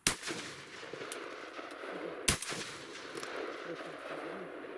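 Two shotgun shots about two seconds apart, fired at a duck in flight, with a steady noise running on after the first shot.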